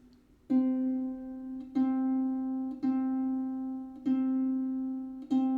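A Celtic harp's C string plucked five times, about once a second, each note ringing on until the next, while it is being tuned up to pitch from below.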